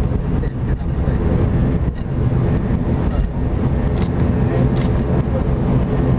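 ATR 42-500 turboprop engines and propellers running, heard from inside the cabin: a loud, steady propeller drone with a low rumble as the aircraft turns onto the runway.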